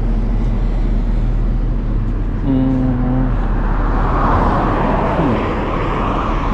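Steady rumble of traffic on a busy highway. A short steady tone sounds about two and a half seconds in, and about halfway through a vehicle passes close, its pitch falling as it goes by.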